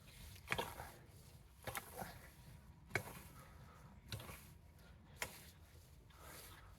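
Garden rake dragged through dead, dry plant debris: about six short strokes at uneven intervals, roughly one a second.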